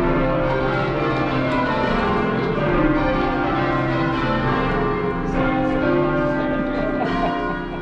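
A ring of twelve church bells ringing rounds, each bell struck in turn down the scale, with the 39 cwt tenor in C sounding last in each round. Heard from the ringing chamber below the bells, the strikes overlap into a continuous ringing.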